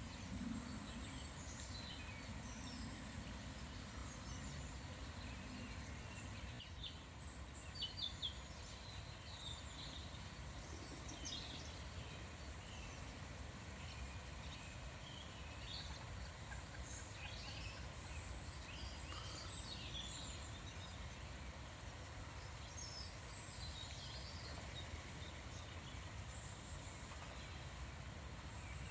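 Small wild birds calling and singing: many short chirps and brief phrases scattered throughout, over a steady low background rumble, with a few short ticks about eight seconds in.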